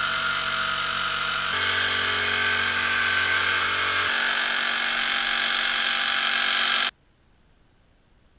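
Makita corded jigsaw running as it cuts through shuttering plywood. A steady motor-and-blade buzz whose tone shifts twice, then cuts off suddenly about seven seconds in.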